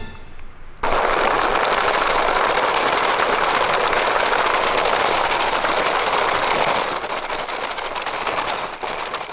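Plastic wheels of a toy car-carrier truck rolling over dry fallen leaves and gravelly dirt: a steady noisy rustle that starts about a second in and eases off near the end.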